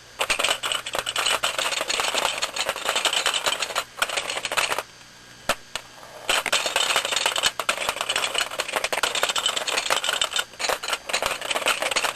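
A dense, rapid clatter of small hard objects that breaks off about four seconds in and again for a second or so soon after, then starts up again.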